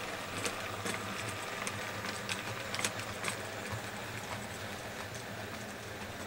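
OO gauge model train running past: a steady low hum with irregular light clicks of the tank wagons' wheels over rail joints and points, the clicks thinning out after about three and a half seconds as the last wagon goes by.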